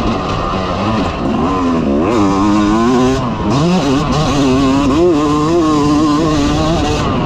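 2022 Yamaha YZ250 two-stroke single-cylinder engine under hard riding, its pitch climbing and dropping several times as the throttle is worked and the gears change.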